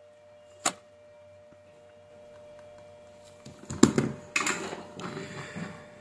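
Workbench handling: a sharp click about half a second in, then, from about three and a half seconds, a couple of seconds of clattering and rustling as the soldering iron is put down and the power-adapter circuit board is picked up off the bench.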